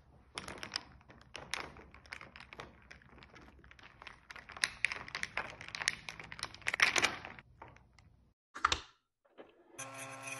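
Ice cubes clicking and rattling against a drinking glass as an iced coffee is stirred with a straw, in quick irregular clatters for most of the time. Near the end an espresso machine's pump starts with a steady buzzing hum.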